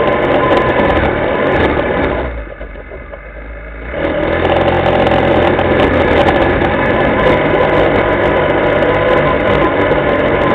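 Linhai ATV engine running steadily as the quad rides along, with the sound dropping away briefly about two seconds in and returning after a second or so.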